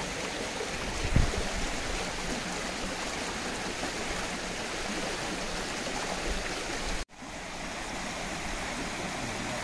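Stream water running with a steady rushing sound, with a dull thump about a second in. The sound drops out for an instant about seven seconds in.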